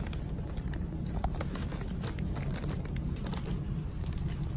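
Scattered light crinkles and taps as a kitten bats at a dangling cardboard toy, its plastic cone collar and paws brushing cardboard and plastic, over a steady low background hum.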